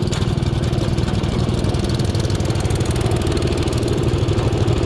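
Tractor engine running steadily at an even idle.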